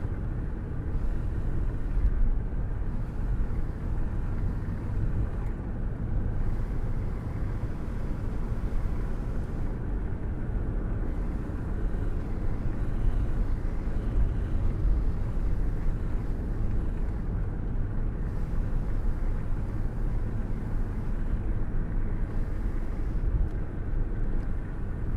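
Cabin sound of a car driving: a steady low rumble of engine and road noise heard from inside the car.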